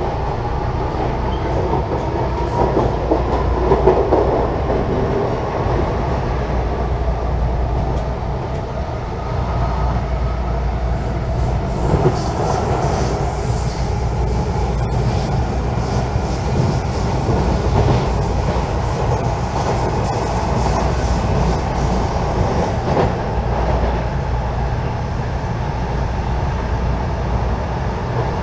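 CPTM Line 8 electric commuter train running along the track, heard from inside the passenger car: a steady low rumble of wheels on rails, with a few clicks over the rail joints.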